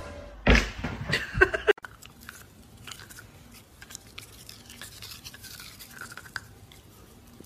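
A couple of knocks and thumps in the first two seconds, then a dog gnawing on a plastic toothbrush: faint, scattered clicks and scrapes of the brush against its teeth.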